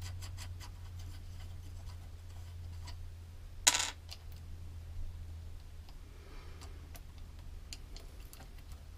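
Small clicks and taps of parts being handled while an O-ring seal is fitted into a starter-motor solenoid housing, with one louder brief knock about four seconds in, over a steady low hum.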